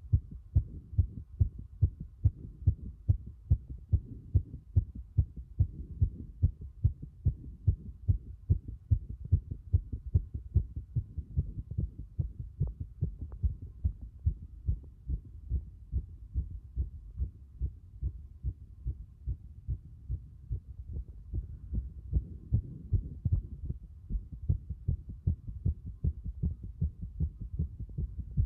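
A fast human heartbeat recorded at the cardiac apex of the chest: regular low thuds, about two beats a second.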